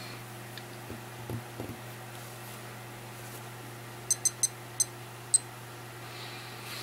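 Casio PAS400B digital watch beeping as its buttons are pressed: five short, high-pitched beeps in quick succession about four seconds in, stepping through the watch's display modes.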